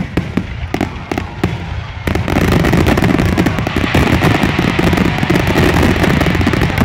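Aerial fireworks exploding: separate sharp bangs and crackles for about two seconds, then a sudden dense barrage of overlapping bursts and crackling.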